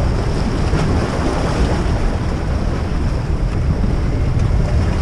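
Steady wind noise on the microphone, with small waves washing against the rocks of the shoreline.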